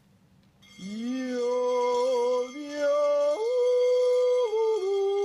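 A man yodeling, starting about a second in: long held notes that jump abruptly from one pitch to another, with a leap up into a higher register.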